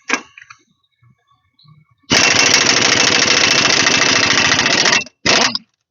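Impact wrench hammering on the crankshaft pulley bolt of a 3.9 V6 engine to break it loose: one rapid rattling run of about three seconds, then a short burst of about half a second.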